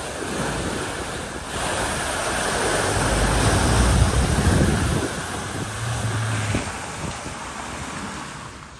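Small SUV wading through deep floodwater at a ford: water rushing and splashing off its bow wave and wheels, swelling as it passes close by about four seconds in, then fading as it drives out, with a low engine rumble underneath.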